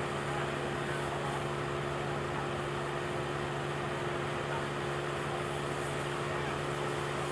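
Vehicle engine idling steadily, a constant low hum at unchanging pitch, under a general hubbub of crowd noise.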